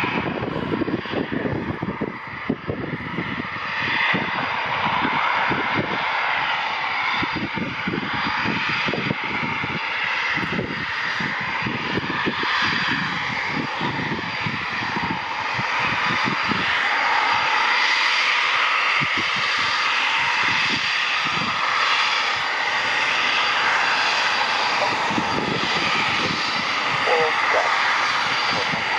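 Eurofighter Typhoon's twin EJ200 turbofan engines at taxi power: a steady jet whine and rushing roar, growing louder about halfway through as the jet comes closer, over an irregular low rumble.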